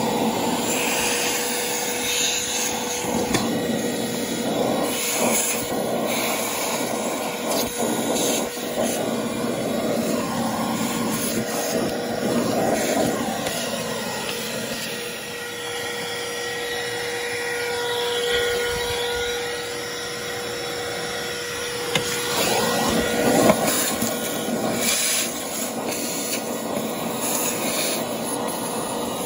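Vacuum cleaner running, its hose nozzle sucking dirt out of a car's glovebox cavity: a steady whine whose suction note shifts as the nozzle moves about, with a couple of brief knocks later on.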